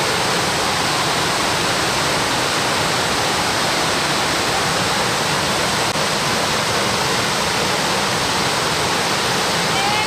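Small waterfall pouring over a rock ledge into a shallow stream: a steady, loud rush of falling water.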